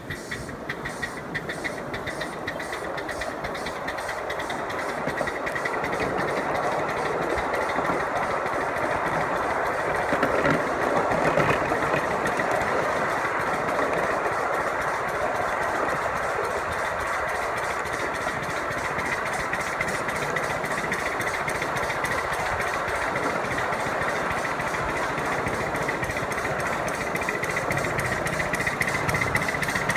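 A 1-inch-scale ride-on miniature train running along its track, a steady mechanical running sound with a fast, regular clicking. It grows louder over the first few seconds.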